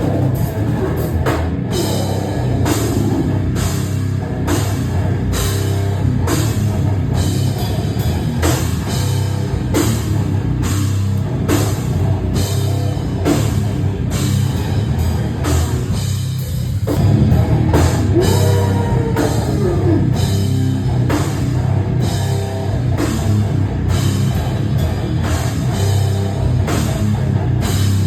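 A hardcore punk band playing loud and fast, with distorted guitars, bass and pounding drums with crashing cymbals. The cymbals and upper instruments drop out briefly about sixteen seconds in, then the full band comes back louder.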